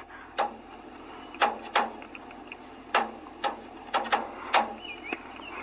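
Phone being handled and set down on a windowsill: about nine short, sharp clicks and taps at irregular spacing, over a faint steady hiss.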